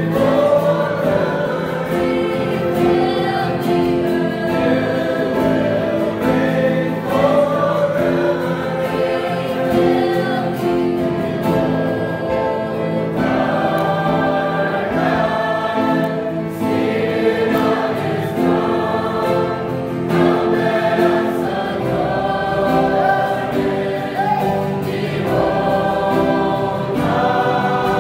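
A youth choir of young women and men singing a Christian worship song together in unison, accompanied by an acoustic guitar.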